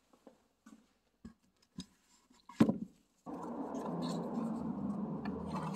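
Light clicks and taps from handling small parts and packaging, with one sharp knock about two and a half seconds in. From just past halfway there is a steady rushing noise with a low hum underneath.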